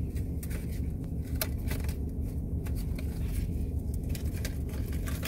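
Car interior noise: a steady low engine and road rumble, with scattered light clicks of something being handled.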